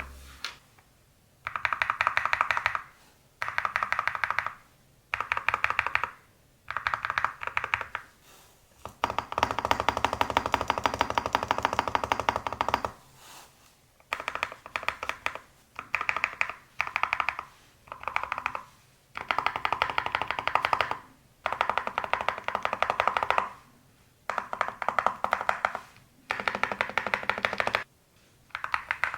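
Typing on a mechanical keyboard with Akko Creamy Yellow U1 linear switches (45 gf, factory-lubed, POM housings) on an FR4 plate, a deep thocky sound. It comes in bursts of fast keystrokes, each a second or two long with short pauses between them, and one longer run of about four seconds near the middle.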